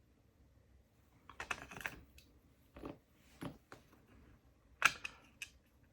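Light clicks and taps of small metal parts from a brass lock cylinder being handled, its pins and plug being set down: an irregular scatter of small knocks, with one sharper click near the end.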